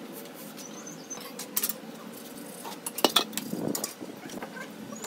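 Steel mason's trowel scraping and clinking against mortar and the top of a column, with a few sharp clinks, loudest about 3 seconds in.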